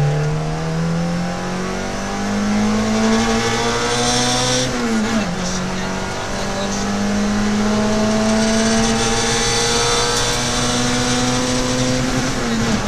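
Peugeot 106 XSi rally car's engine heard from inside the cabin under hard acceleration, its pitch climbing steadily, with upshifts about five seconds in and again near the end.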